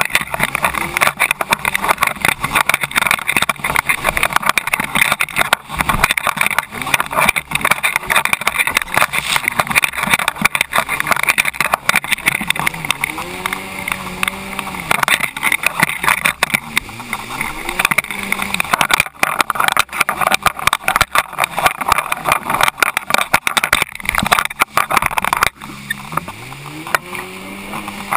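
Jet ski running at speed over choppy water, its engine note rising and falling a few times, about halfway through and again near the end. Heavy wind buffeting on the camera's microphone and splashing spray run over it throughout.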